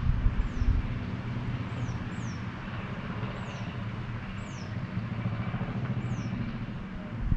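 Outdoor town ambience: a steady wash of distant road traffic, with wind buffeting the microphone at the start and again near the end. A bird gives short, high, falling chirps about once a second.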